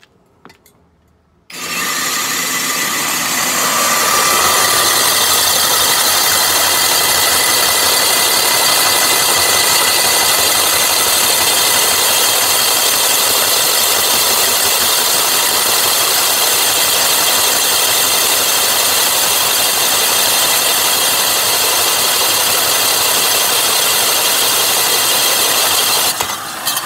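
Metabo brushless SDS Max rotary hammer drilling a concrete block with a Diteq C34 dry core bit, with the Metabo ASR dust extractor vacuum switching on with the trigger and running alongside through the dust shroud. The sound starts suddenly about a second and a half in, runs loud and steady, and drops near the end.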